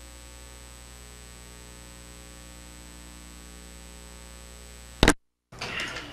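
Steady electrical mains hum in the recording's audio feed: a buzz with many evenly spaced overtones and a thin high whine above it. About five seconds in it ends in a loud click and a moment of dead silence, after which open room sound with a few light knocks comes in.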